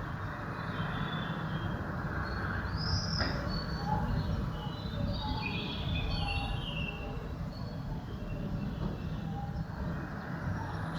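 Steady low rumble of distant city traffic, with birds chirping over it, a rising-and-falling call about three seconds in and a cluster of short chirps in the middle.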